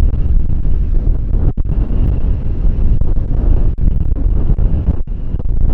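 Strong wind buffeting the microphone: a loud, steady low rumble with a few brief dips.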